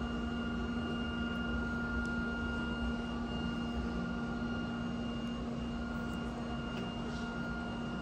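Steady mechanical hum and hiss with a low constant tone and fainter high whining tones, unchanging throughout.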